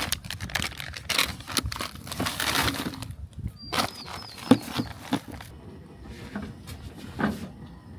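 Plastic food packaging rustling and crinkling as packs are pulled around inside a cooler, with a sharp knock about halfway through. A bird chirps a few times in the background.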